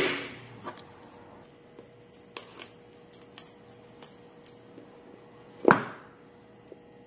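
Hands unboxing an iPhone 13 Pro: a sharp sound at the start, then scattered light clicks and rustles of the cardboard box and the phone being handled. A louder brief rustle comes near the end as the protective film is peeled off the screen. A faint steady hum runs underneath.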